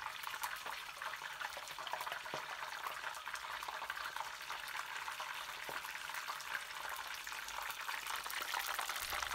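Beer-battered pieces deep-frying in hot sunflower oil: a steady crackling sizzle made of many tiny pops.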